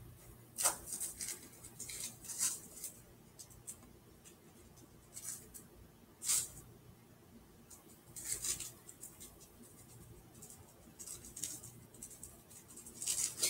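Faint, scattered rustles and light taps of a phone being handled, coming at irregular moments, over a faint low hum.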